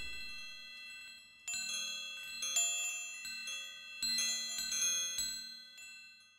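Tinkling chime tones, several high notes struck together in small clusters about a second apart and ringing on, dying away near the end.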